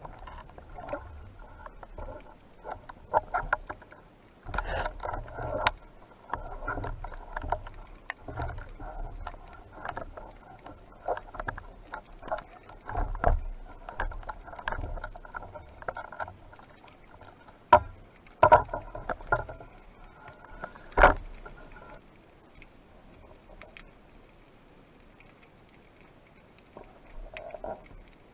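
Underwater handling noise picked up by a speargun-mounted camera: irregular clicks, knocks and scrapes of spearfishing gear, with low rumbling of water movement. Several sharp knocks come about two-thirds of the way through, then it goes much quieter for the last few seconds.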